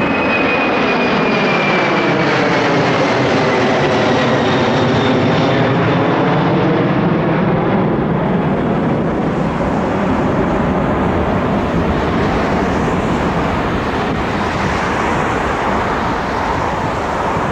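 Boeing 747-400's four jet engines at climb power as the airliner passes low overhead and climbs away. Loud, steady jet noise, with a high whine that slides down in pitch over the first few seconds as it goes by.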